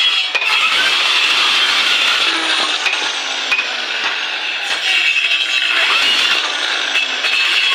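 Power tool cutting or working wood, a steady loud noise with small ups and downs.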